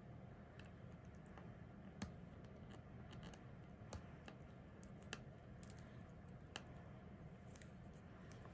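Faint, scattered clicks and ticks of fingernails picking at the plastic seal on a lip liner pencil, over quiet room tone.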